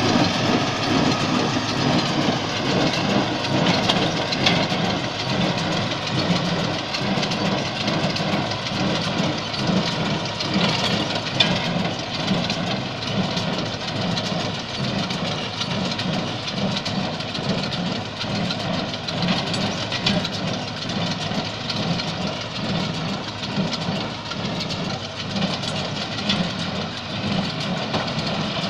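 T-40 tractor's diesel engine running steadily under load while driving a John Deere 342 small square baler, whose plunger packs the hay with an even, repeating knock.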